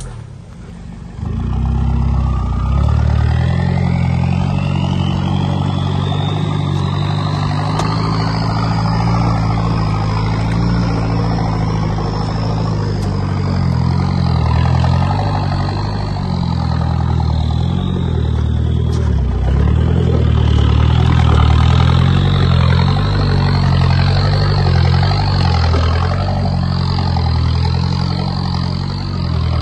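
Off-road 4x4's engine running at low revs under load as it crawls over rocks, heard close to the exhaust, with a high whine that climbs over the first few seconds, sinks about two thirds of the way in, then climbs again.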